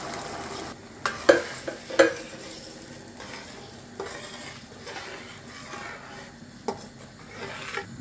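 A spoon stirring a pot of stew over a light frying sizzle, knocking against the pot several times, with the two loudest knocks about one and two seconds in.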